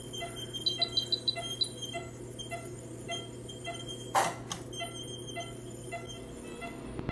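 Anaesthesia monitor beeping in short, even pitched beeps, nearly three a second, in time with the anaesthetised cat's pulse, over a steady equipment hum. A short hiss comes about four seconds in.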